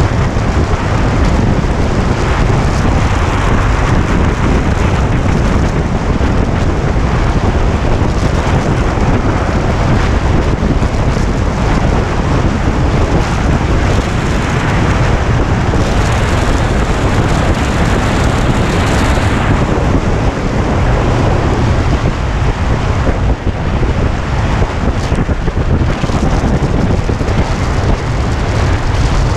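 Heavy wind noise buffeting a motorcycle-mounted camera's microphone at road speed, with motorcycle engine and road noise beneath it.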